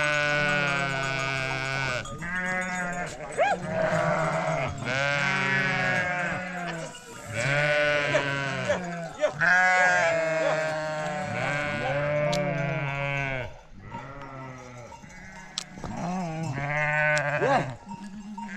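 A mixed flock of sheep and goats bleating, many calls overlapping almost without a break, with a quieter stretch about two-thirds of the way through.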